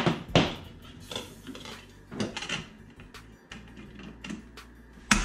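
Hard plastic wheel cover of a snow blower being handled and pressed onto the wheel: a string of plastic clacks and knocks, with sharp ones at the start and just before the end.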